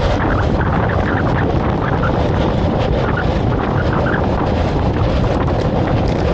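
Wind buffeting the microphone: a steady, loud low rumble with no engine note in it.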